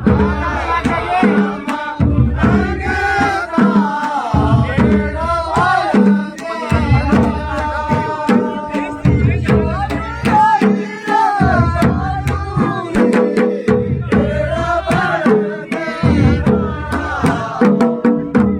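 Pahari nati folk music: a singer's voice over a steady, driving drum beat.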